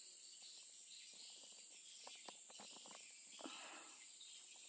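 Faint, steady, high-pitched insect chirring, like crickets, with a few faint soft knocks in the middle.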